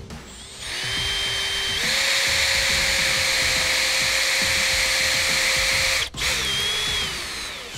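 Cordless drill driving a self-drilling screw through a ground wire clip into a fiberglass utility pole. The motor runs with a steady whine that steps up in speed about two seconds in, stops briefly about six seconds in, then runs again and winds down near the end.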